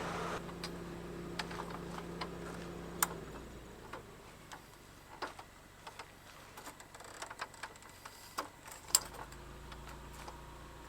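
Scattered light clicks and taps, irregular and a few per second, over a low steady hum that stops about three seconds in.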